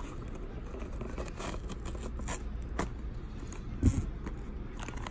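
Hands handling packaging: short scrapes and rustles, with a louder low thump about four seconds in.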